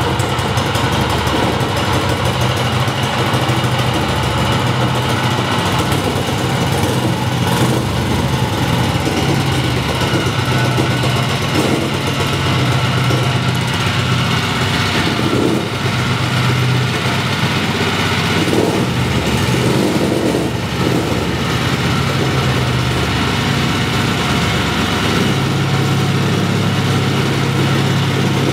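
A 5 hp single-cylinder small engine running steadily, just after being started.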